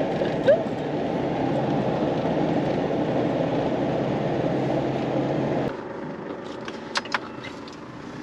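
A four-wheel drive's engine and road noise, heard from inside the vehicle as it climbs a steep hill. About six seconds in the noise drops away suddenly to a quieter hum, with a couple of sharp clicks soon after.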